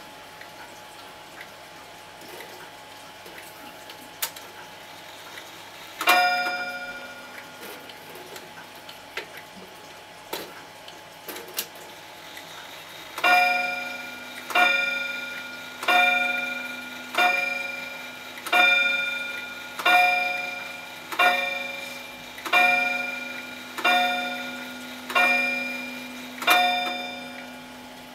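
Vintage Lincoln pendulum wall clock striking: a few faint clicks, one ringing strike about six seconds in, then about a dozen evenly spaced strikes of the same pitch, roughly one every 1.3 seconds, each fading before the next, as it strikes the hour at twelve.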